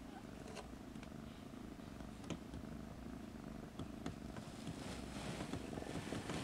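A Siamese mother cat purring steadily as she licks her kittens, with small clicks through it and a soft rustle of fur and bedding building from about halfway as she shifts.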